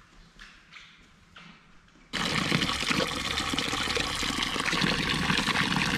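Water pouring steadily from the metal spouts of a stone spring fountain into its trough, splashing onto a hand held in the stream. It starts abruptly about two seconds in. Before that there is only faint room tone with a few soft knocks.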